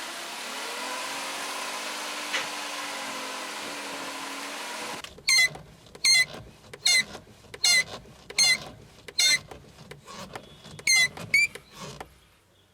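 Nissan Clipper van's steering squeaking: about eight short, sharp squeaks less than a second apart, each bending in pitch, which start about five seconds in after a steady running hum. The owner takes it for a dry steering joint, to be cured with grease.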